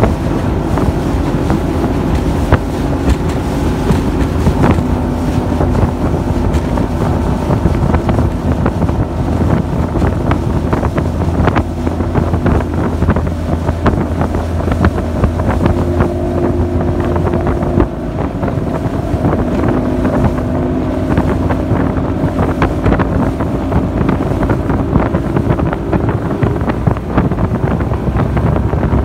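Bass Cat bass boat running across a lake: a steady outboard-engine drone that shifts pitch slightly partway through, under heavy wind noise on the microphone, with frequent short knocks as the hull rides the chop.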